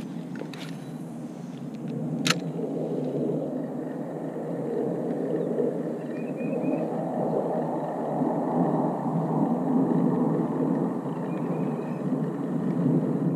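Steady low rumbling noise that swells and fades, with a sharp click about two seconds in.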